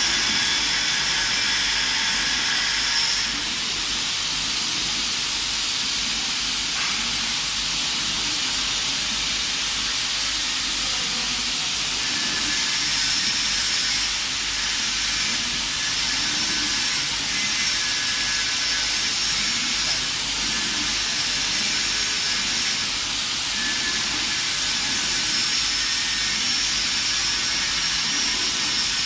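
Large-format CO2 laser fabric cutting machine running: a steady airy hiss, with a faint high whine that comes and goes.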